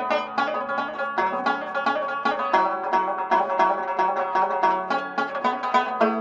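Saz (bağlama), a Turkish long-necked lute, playing a quick melody of rapidly plucked notes.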